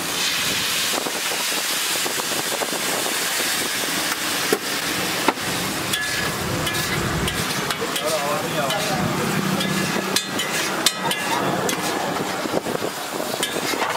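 Egg mixture sizzling on a large hot flat griddle, a steady hiss, with a metal spatula scraping across it and a few sharp clinks against the griddle.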